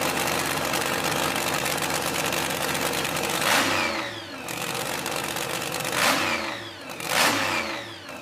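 American muscle car's big engine idling, then revved sharply three times, each rev dropping quickly back down toward idle.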